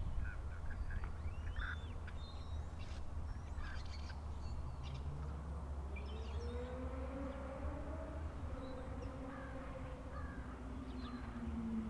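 American crows cawing, over a steady low rumble. In the second half a tone rises and then slowly falls.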